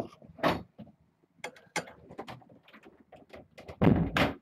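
A string of irregular clicks, knocks and rustling handling noises, with a louder, longer clattering burst near the end.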